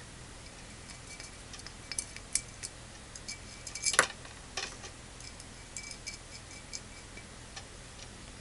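Small, irregular metallic clicks and ticks as threaded brass SMA coaxial connectors are unscrewed and handled against an aluminium power divider's ports, with a sharper click about four seconds in.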